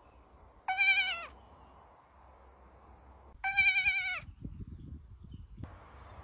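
A baby goat bleating twice: two short, high calls about two and a half seconds apart, each dropping in pitch at the end.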